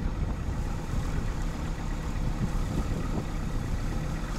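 Sherp amphibious all-terrain vehicle's diesel engine running steadily as the vehicle crawls down a steep grassy slope.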